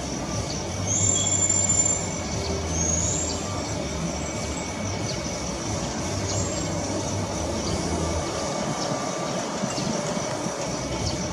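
Jet engines of Vietjet Airbus A320-family airliners running on the runway, a steady rumble with a high whine that rises briefly about a second in and again about three seconds in. The low drone fades away near the end.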